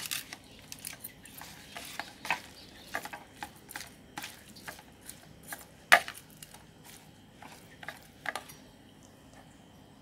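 Metal spoon scraping and clacking against a plastic mixing bowl as small fish are tossed with chili paste. Irregular clicks and scrapes, the loudest about six seconds in, tailing off near the end.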